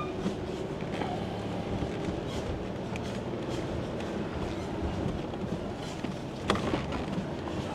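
Jeep driving slowly up a dirt and gravel forest road: engine running at low revs under a steady crunch of tyres on stones, with scattered clicks and pops and one sharper crack near the end.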